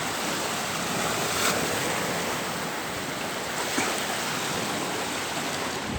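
Small waves of the Caspian Sea washing on the shore, a steady rushing wash.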